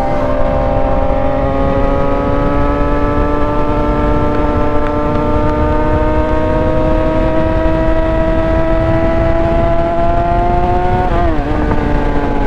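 Yamaha R6's 600cc inline-four engine pulling in one gear, its pitch rising slowly and evenly, then a quick shift about eleven seconds in drops the revs before it pulls on. Wind noise rushes underneath.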